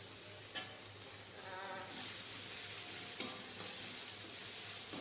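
Tomato and sauce sizzling in a hot steel wok while a metal spatula stirs and scrapes it, with a few sharp clicks of the spatula against the wok. The sizzle gets louder about two seconds in.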